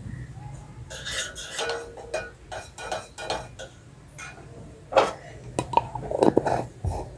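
Metal spoon scraping and clinking against the side of a metal cooking pot while chicken pieces are stirred, a run of irregular sharp clinks and scrapes, loudest around five to six and a half seconds in.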